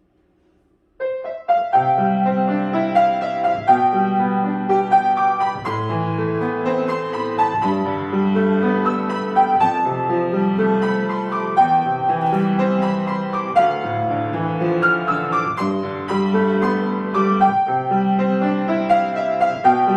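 A solo piano starts playing about a second in: a melody over repeated low chords.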